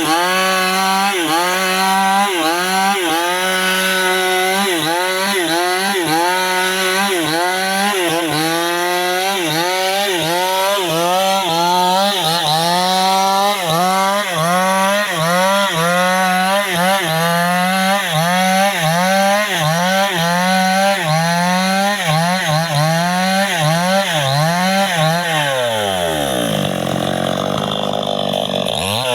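New West 588 two-stroke chainsaw running at high revs while cutting wood. The engine speed dips and recovers over and over, about once or twice a second. Near the end the engine drops nearly to idle, then revs back up.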